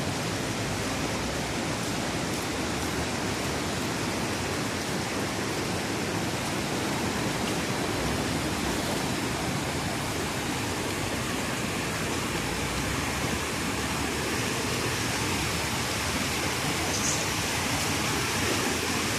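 A river in flood, its water rushing steadily without letting up.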